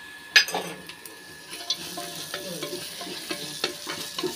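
Wooden spatula stirring onions and spices frying in ghee in a pressure cooker pot, scraping and tapping against the metal over a light sizzle, with a sharp knock about half a second in.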